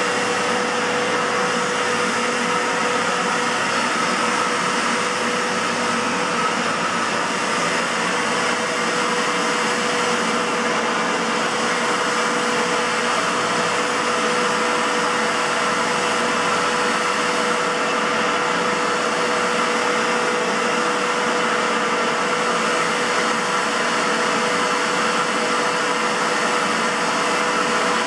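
Aerus Lux 5500 (C152C) Electrolux canister vacuum cleaner running steadily, a constant rushing whirr with a steady mid-pitched whine. Its motor has a bad bearing, which the owner fears may not last.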